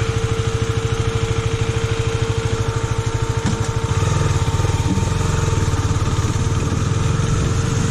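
KTM Duke 250 single-cylinder motorcycle engine running with an even, fast pulse. It gets louder about halfway through as the throttle opens.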